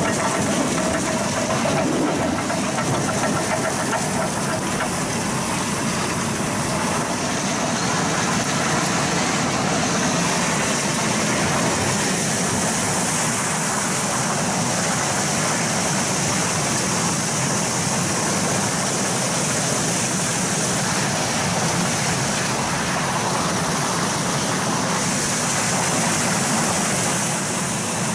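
Industrial french-fry washing machine running: a steady rush of churning, spraying water mixed with the hum of the machine as cut potato strips are washed.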